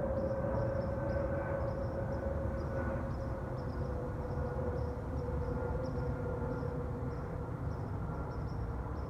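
Jet airliner passing overhead: a deep engine rumble under a strong whine that slowly falls in pitch, with a fainter higher whine falling with it.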